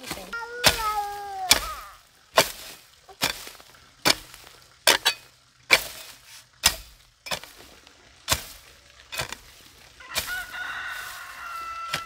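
A rooster crows at the start, and a second long call comes near the end; between them, sharp knocks fall roughly once a second.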